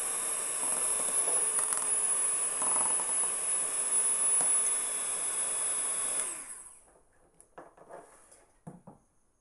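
Electric hand mixer beating eggs in a ceramic bowl: a steady motor run with a high whine. About six seconds in it is switched off and the whine falls away, followed by a few light knocks.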